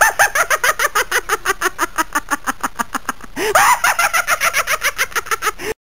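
A shrill, rapid cackle: short rising-and-falling pitched notes at about seven a second. It breaks off briefly about three seconds in, starts again, then cuts off abruptly near the end.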